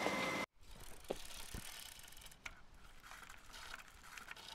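Room ambience with a steady high hum that cuts off abruptly about half a second in. After it, a faint background with a few soft clicks and knocks.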